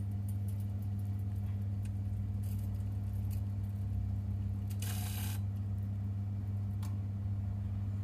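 Steady low electrical mains hum from the heating system's controls, with a brief rustle about five seconds in and a few faint ticks.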